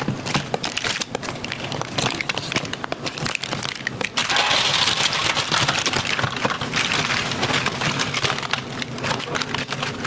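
Abalone shells clicking and clattering against each other and a metal basin as they are handled, with many sharp knocks; a steady hiss joins in about four seconds in.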